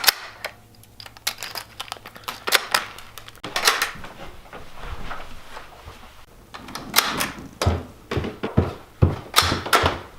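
Kitchen clatter: an irregular string of sharp clicks, knocks and thuds from handling dishes and utensils, busiest near the end.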